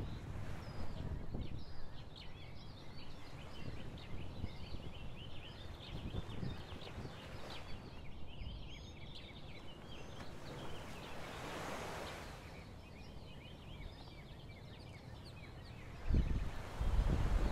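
Many birds calling at once in a dense, chattering chorus of short high chirps, over wind noise that gusts on the microphone near the end.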